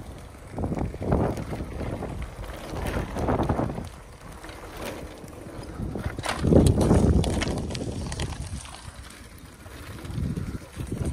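Wind buffeting a phone's microphone in uneven gusts while riding a bicycle, loudest just past the middle, with a few sharp clicks and rattles around then.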